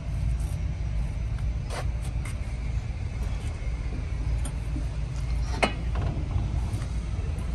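A steady low rumble, with a few light knocks and clicks scattered through it.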